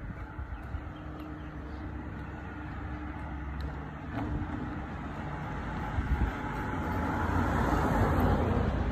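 A car approaching along the road and driving past, its tyre and engine noise swelling to loudest near the end.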